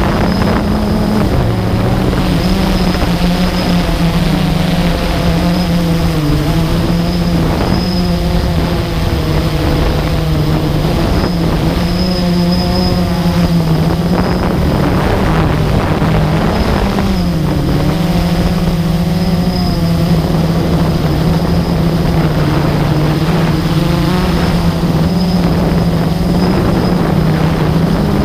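Blade 350 QX2 quadcopter's brushless motors and propellers buzzing loudly close up, the pitch wavering up and down as the throttle changes in flight. A faint steady high whine runs under it.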